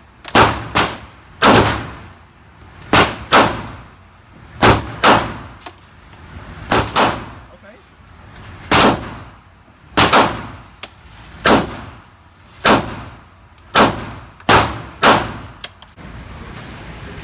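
Gunshots at a shooting range: about fifteen shots at an uneven pace of one or two a second, some in quick pairs, each with a short ringing tail. The shooting stops near the end.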